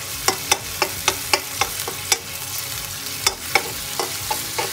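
Chopped shrimp sizzling in hot oil in a wok while a slotted spatula stirs them, clicking and scraping against the pan about four times a second over a steady frying hiss.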